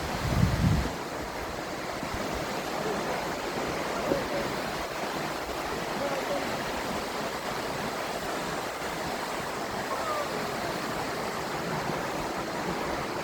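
Steady rushing roar of Multnomah Falls, the falling water heard as an even, unbroken rush. A low rumble sits under it for about the first second.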